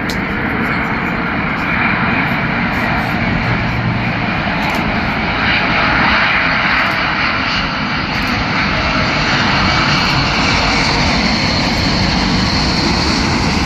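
Boeing 787 Dreamliner passing low overhead on landing approach with its gear down: steady jet engine noise that swells to its loudest about halfway through and stays strong.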